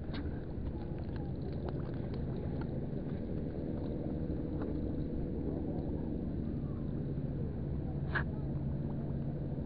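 Steady low drone of distant engines, with a few faint taps and one sharper click about eight seconds in.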